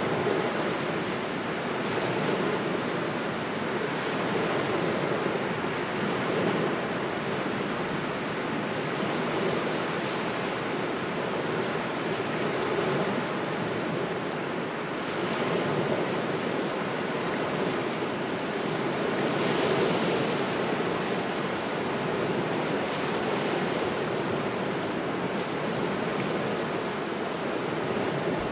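Waves washing onto a shore in a steady cold wind, the wash swelling and easing every few seconds, with a louder, hissier surge about two-thirds of the way through.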